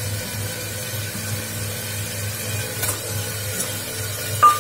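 Spice masala sizzling steadily in mustard oil in an aluminium pressure cooker on a gas stove, with a single sharp metallic clink near the end.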